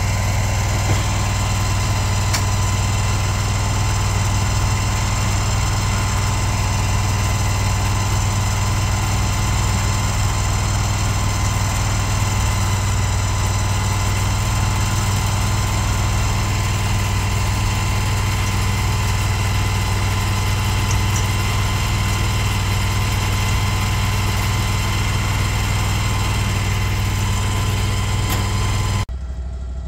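Engine of a Mule shed mover idling steadily.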